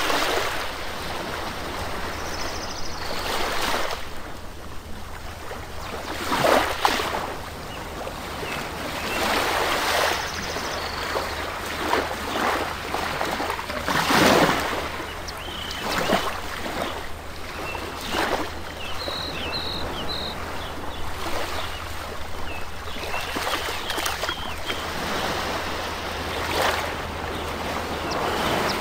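Rushing water noise from the aquarium tanks' filters and aerators, swelling and easing irregularly every few seconds over a steady low hum.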